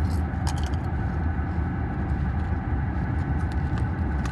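Steady low rumble of a car's road and engine noise heard from inside the cabin, with a few light clicks and crackles.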